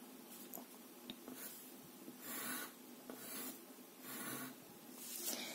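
Pencil drawing lines on paper along the edge of a set square: a few short, faint scratching strokes, starting about two seconds in.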